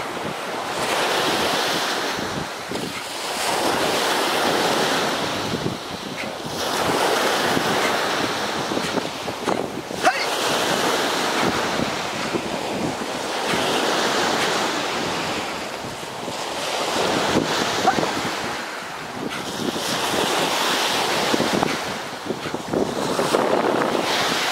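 Surf breaking and washing up a sandy beach, swelling and fading every few seconds, with wind buffeting the microphone.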